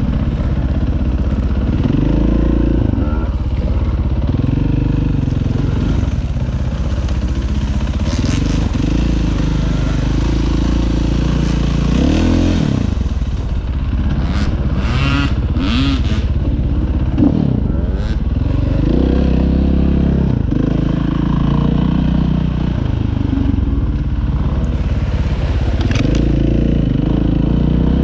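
Dirt bike engine running under load on a trail, its revs rising and falling again and again as the throttle is opened and closed.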